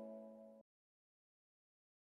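Near silence: the last of a soft ambient music outro fades out, sustained tones dying away and stopping about half a second in, then nothing.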